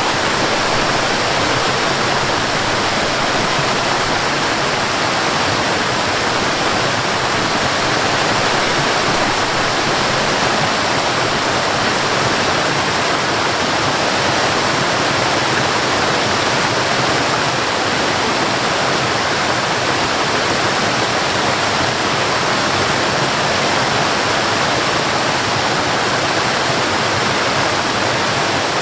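Waterfall rushing steadily, an even wash of falling water that does not change.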